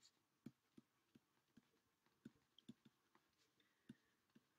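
Near silence with faint, short, irregular taps, two or three a second, from a stylus handwriting on a digital drawing tablet.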